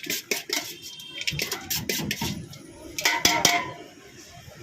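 Metal utensils clinking and clattering at a bhel stall, in a quick run of sharp knocks over about the first three and a half seconds, then quieter.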